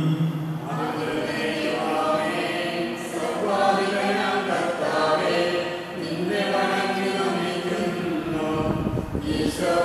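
A group of voices singing together, unaccompanied, with a short dip in loudness about six seconds in.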